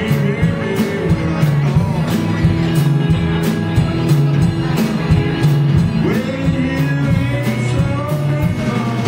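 Live blues band: an amplified blues harmonica wails with bent notes over electric guitar, a repeating bass line and a drum kit keeping a steady beat on the cymbals.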